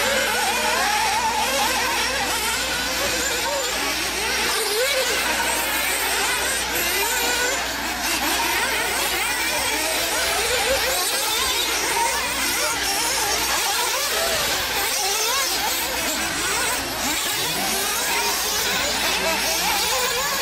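Several 1/8-scale RC off-road buggies racing, their small engines revving up and down over one another in a continuous high-pitched buzz as they accelerate and brake through the corners.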